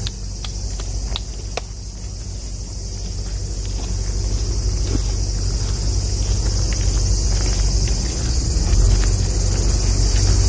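Loud, steady chorus of cicadas buzzing in the trees, with a few footsteps on a gravel path near the start and a low rumble growing in the second half.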